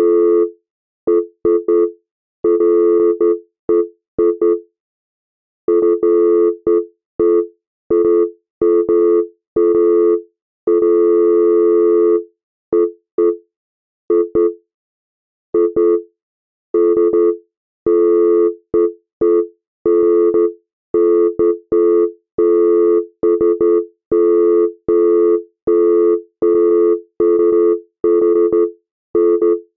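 Synthesized electronic beeps generated in real time in VCV Rack, their frequency controlled by the position of a hand tracked by a Kinect. The beeps come in bursts of irregular length and spacing, with a longer held stretch about eleven seconds in, and many of them start with a click.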